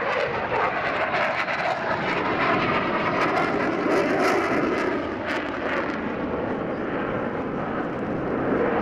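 Boeing F/A-18 Super Hornet's twin General Electric F414 turbofans heard from the ground as the jet flies overhead: steady, rough jet noise with sharp crackles between about three and six seconds in.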